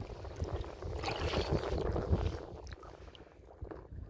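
Wind buffeting the microphone over small waves lapping against a kayak, with scattered light splashes; the noise swells for a second or so about a second in.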